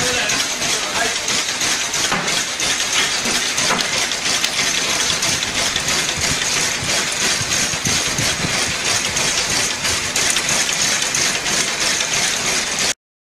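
Carton batch coding machine (contact coder) running, cartons feeding through its rollers in a dense stream of rapid ticks over a steady mechanical whir. The sound cuts off suddenly near the end.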